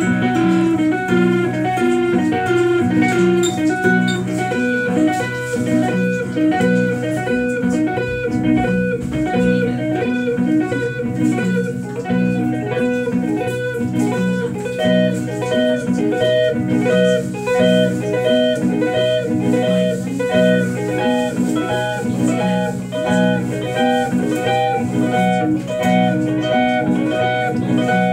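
Electric guitar played live through an amplifier: a steady run of picked notes over ringing low chords, without singing.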